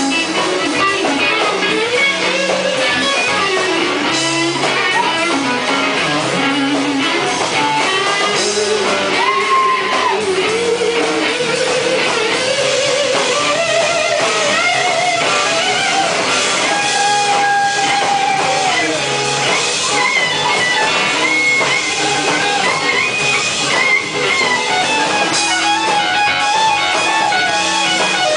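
Live blues band of electric guitars, bass and drums playing, with a lead electric guitar line of held notes that bend up and down.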